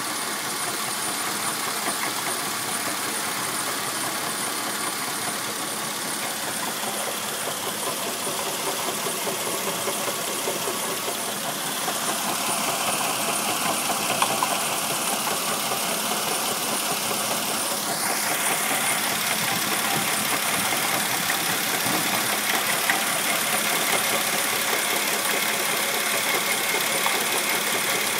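A 1999 Mercedes ML320's 3.2-litre V6 engine running steadily. Its water pump is worn, with play in the pump bearing.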